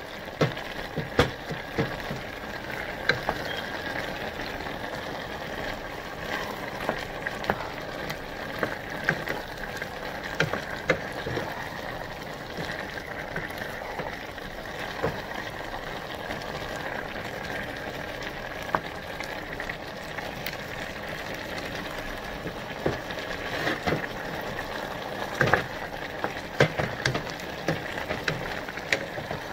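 Wooden spoon stirring sautéed squash and peppers in a stainless steel pot, knocking and scraping against the pot at irregular intervals, over a steady hiss of the vegetables simmering.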